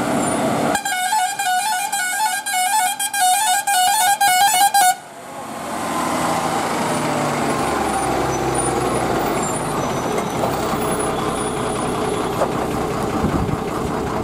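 Loaded 14-wheel lorry's musical horn sounding a quick run of changing notes for about four seconds, cutting off suddenly, then the lorry's heavy diesel engine and tyres grinding past close by as it climbs a hairpin bend.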